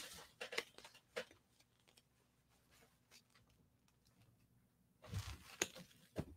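Faint handling noise: a few soft clicks and rustles of a paper tag and folded fabric in the first second or so, then near silence. Near the end there is a short rustle with a low bump as the folded leggings are picked up off the table.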